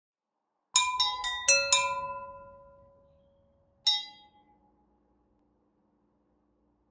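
Tuned desk bells struck five times in quick succession, about four strikes a second, each ringing at a different pitch and dying away, then a single further strike that rings out.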